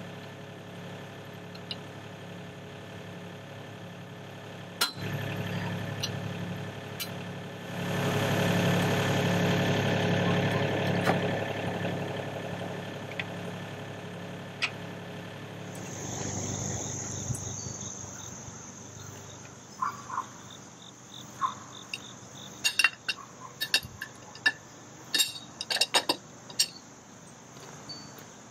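Mini excavator's diesel engine idling steadily, growing louder for a few seconds partway through. After a cut comes a steady high insect trill with a quick run of sharp clicks and clinks near the end.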